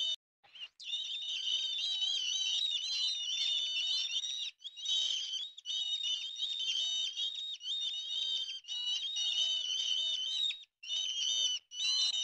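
A small songbird singing a long, fast warbling song of high chirps and trills, broken abruptly by a few short gaps.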